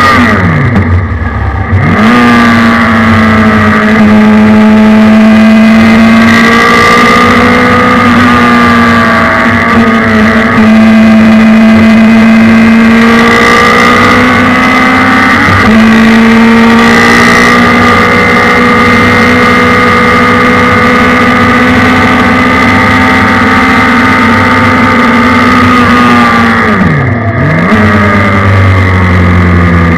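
Suzuki Hayabusa 1300 inline-four motorcycle engine in a race car, heard onboard, running hard at high revs. Its pitch falls away and climbs sharply back twice, near the start and near the end, with a quick dip and recovery about halfway.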